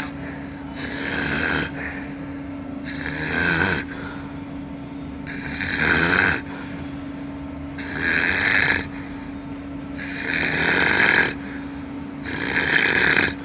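A baby snoring in its sleep: six rasping breaths, about one every two seconds, each swelling and then cutting off abruptly.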